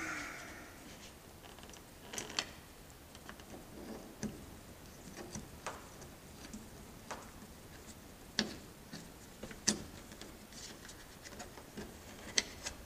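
Scattered light clicks and ticks, irregular and a second or more apart, from a hole finder and a small hand-chucked drill being worked through a plastic wingtip adaptor. The sharpest clicks come a little over two seconds in and around eight and a half and ten seconds.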